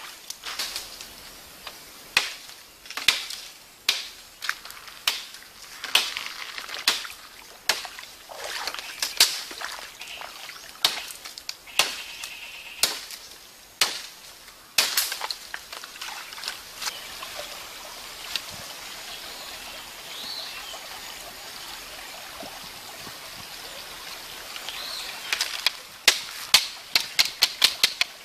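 Sharp knocks and cracks, irregular and roughly one a second, of a knife hacking at bamboo stems. They give way to a stretch of steady stream hiss with a few faint bird calls, then a quick flurry of light taps and cracks near the end as a bamboo stick is cut and shaped with a knife.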